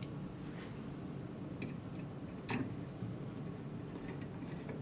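Hand screwdriver driving screws into the sheet-metal burner box of a gas-fired heater: a few light metallic ticks, the loudest about two and a half seconds in, over a steady low hum.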